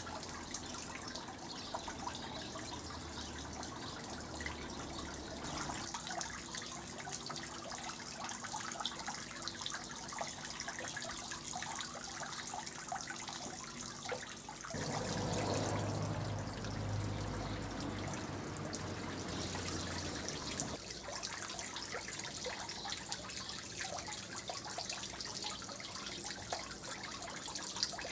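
Small garden fountain trickling and splashing steadily into a water basin. A low rumble swells for several seconds in the middle.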